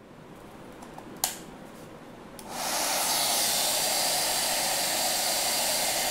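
Handheld hair dryer blowing: a fainter steady hiss with a single click about a second in, then a much louder steady rush of air from about two and a half seconds in.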